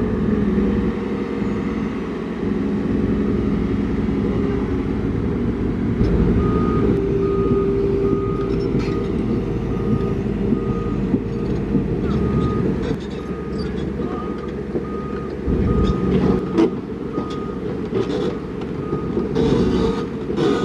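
A heavy vehicle's diesel engine runs under load with its reversing alarm beeping. The beeps start about six seconds in and come evenly, a little more than one a second, with a few sharp knocks and clanks near the end.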